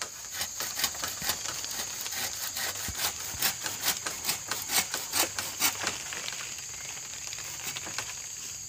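Hand saw cutting through a green bamboo stalk, with quick back-and-forth strokes in a steady rhythm that grow fainter after about six seconds.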